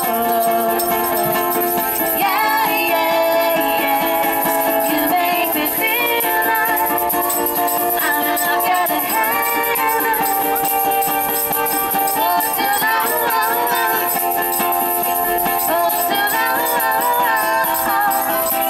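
Live acoustic music: women singing over a strummed ukulele, with small hand percussion rattling and jingling steadily along.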